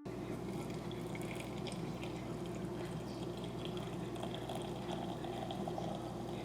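Water sounds from tea-making: a steady liquid rush with small crackles, running evenly throughout.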